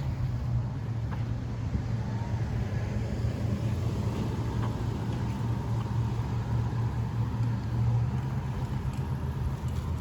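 A vehicle engine running with a steady low drone, under a haze of road or wind noise.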